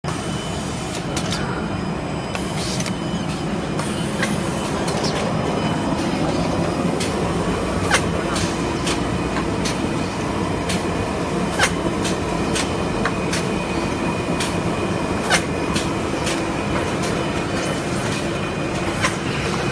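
Automatic rigid-box making machinery (gluing and spotting, box forming) running: a steady mechanical rumble with a sharp clack roughly every three and a half to four seconds as the machines cycle, and fainter clicks in between.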